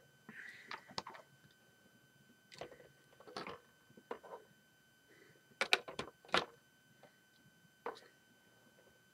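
LEGO plastic pieces and minifigures being handled and set down on a brick model: scattered light clicks and taps, loudest in a quick pair about six seconds in.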